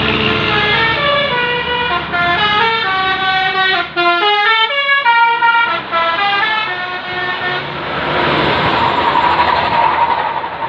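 A tour bus's basuri (telolet) multi-trumpet air horn playing a tune of short notes that step up and down several times a second for about seven seconds. After it comes a loud, even noise of the bus passing close by.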